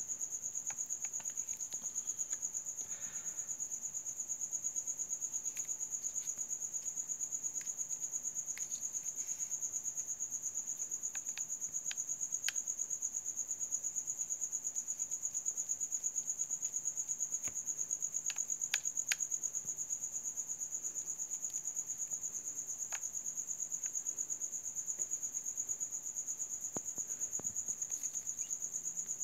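Crickets trilling steadily at a high, continuous pitch, with a few faint scattered clicks.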